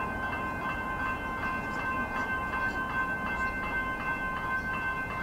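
Level crossing warning bells ringing steadily, with the low rumble of an approaching suburban electric train underneath.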